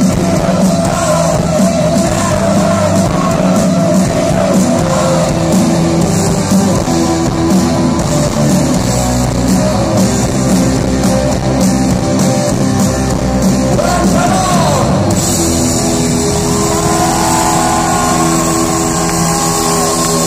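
Live rock band playing loud with electric guitars, bass, drums and a singer, heard through a phone or camera microphone in the crowd. About fifteen seconds in, the playing turns to longer held notes.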